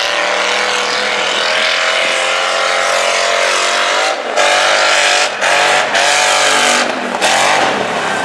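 Lifted Cadillac Escalade mega truck's engine running hard under throttle as it climbs over dirt jumps, its pitch rising slightly. After about four seconds the throttle is cut briefly several times, and the pitch falls near the end.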